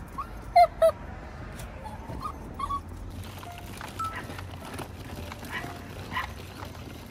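Dogs barking: two loud, high-pitched barks about half a second in, then quieter barks and yips scattered through the rest.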